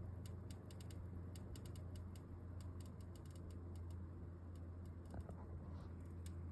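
Corsair RM750e power supply making faint, irregular clicks, several a second, over a steady low hum.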